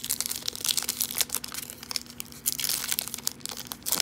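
Foil-lined baseball card pack wrapper crinkling and tearing as it is pulled open by hand, a dense, irregular crackle throughout.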